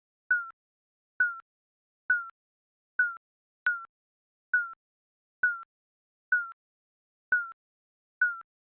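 Digital countdown timer beeps: short, identical high blips with a slight downward pitch and a click at the start, repeating about once a second with silence between.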